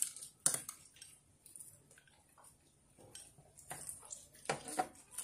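Sounds of eating with chopsticks: chopsticks clicking against porcelain rice bowls, with wet mouth sounds of chewing. There are a few sharper clicks about half a second in and again near the end.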